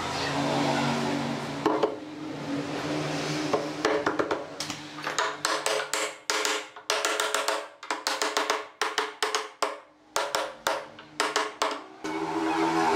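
Hammer taps on a wooden block held against a wooden armrest, knocking it down onto a glued joint in quick, irregular taps, a few a second, starting about four seconds in and stopping about a second before the end. Background music plays underneath.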